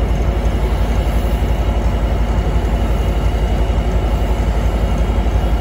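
Metra diesel locomotive's engine running as it stands at the platform: a loud, steady low throb with a fast even pulse.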